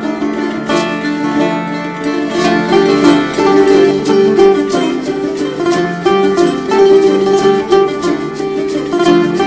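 Music for a Persian dance, led by plucked string instruments playing a busy melody.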